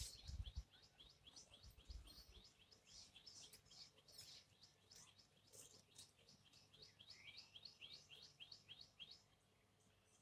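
A bird calling faintly in a fast, even series of short, high, falling chirps, about four a second, that stops near the end, with one lower sliding note partway through. A few low thumps sound near the start.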